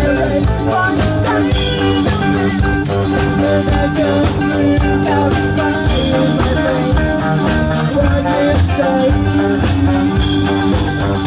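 Live rock band playing electric guitars, bass guitar and drum kit, loud and steady with a regular drum beat under melodic guitar lines.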